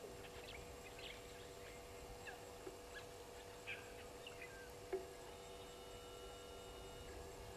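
Sparse short bird chirps and calls over a faint steady hum. A single louder, short low knock comes about five seconds in.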